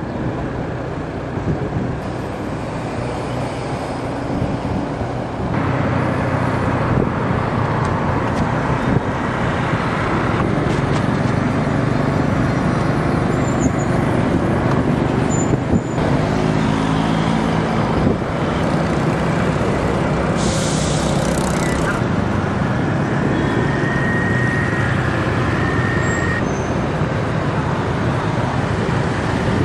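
Road and traffic noise heard from a moving motor scooter in city traffic: a steady rush of wind and tyres, with the scooter's engine and passing motorbikes and cars. A brief hiss about twenty seconds in.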